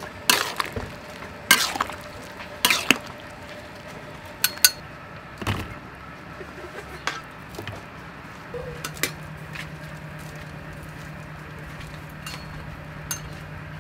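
Metal kitchen utensils knocking and clinking against a metal wok and bowls in a series of sharp separate strikes, as blanched vegetables are scooped out with a wire skimmer. A low steady hum comes in about two-thirds of the way through.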